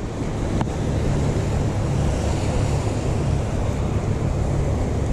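Wind buffeting the microphone over the steady wash of surf on rocks, with one light click about half a second in.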